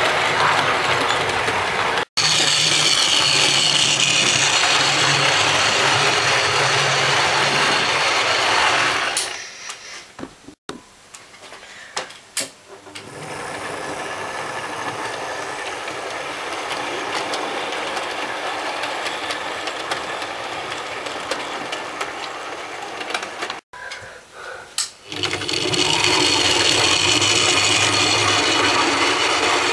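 OO-gauge model trains running on a layout: the locomotive's small electric motor whirring and the wheels rattling over the track, loud while the coaches pass close by and quieter through the middle stretch. The sound drops out abruptly a few times.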